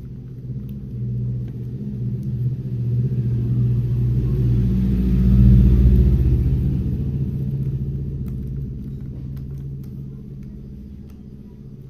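Low engine rumble of a passing vehicle, swelling to its loudest about halfway through and slowly fading away, with a few faint clicks near the end.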